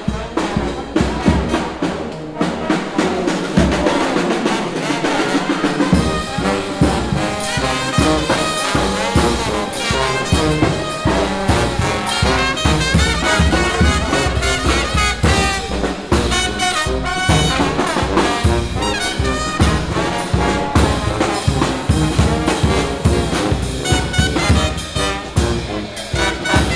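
Jazz played by a brass band, trumpet and trombone to the fore. A deep bass line and a steady beat come in about six seconds in.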